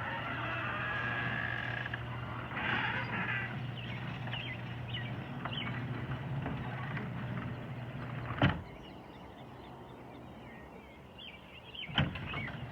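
LiftMaster 1/2 horsepower chain-drive garage door opener running steadily as the door travels down. A loud thump comes about eight seconds in as the door meets the floor and the motor stops. About three and a half seconds later another thump comes as the opener starts the door back up.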